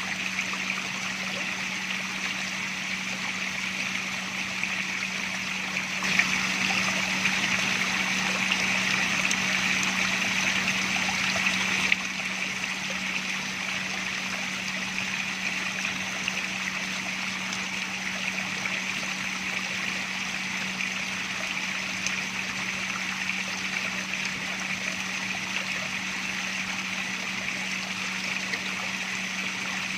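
Water running and splashing steadily, with a steady low hum underneath. The water gets louder for about six seconds starting about six seconds in, then drops back abruptly.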